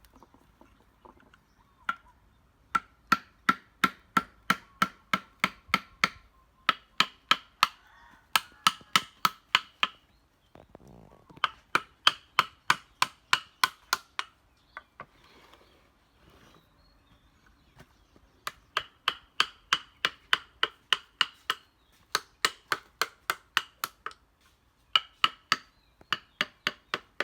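Carving chisel driven into wood by repeated mallet blows, about three or four strikes a second, each with a short ringing tone. The strikes come in runs of a few seconds with brief pauses between them.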